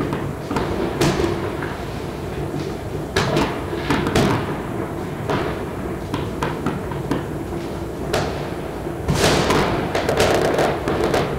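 Scattered bangs of firecrackers going off one at a time, each trailing off, over a steady background hum, with a denser run of bangs about nine seconds in.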